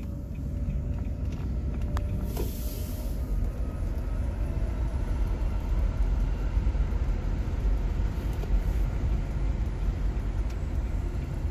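Steady low road and tyre rumble of a moving car, heard from inside the cabin, with a brief hiss about two and a half seconds in.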